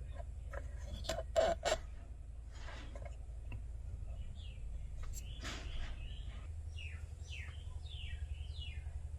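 A few sharp clicks about a second and a half in, then a bird chirping a quick run of falling notes near the end, over a steady low hum.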